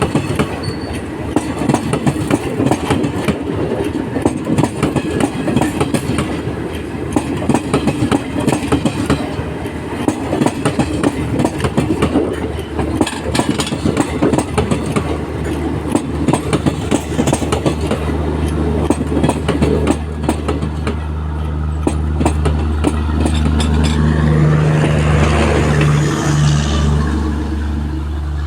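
Train wheels running over rail joints, a fast, continuous clickety-clack. In the last third a steady low engine drone grows louder over it.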